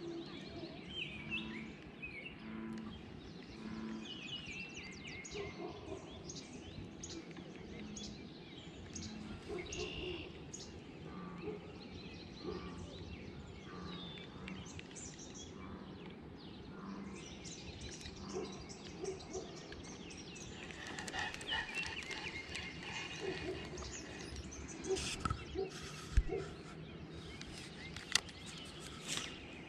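Small birds chirping and calling, with short calls scattered throughout over a low steady outdoor background, and a few sharp clicks near the end.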